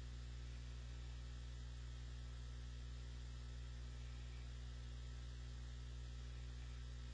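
Steady low electrical hum with a faint hiss underneath, unchanging throughout: mains hum and noise picked up by the recording's microphone chain.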